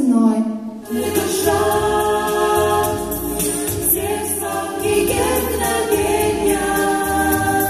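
A small vocal group singing a Christian song in harmony, with held, stacked notes. A single note slides down and fades at the start, and the group's singing comes in about a second in.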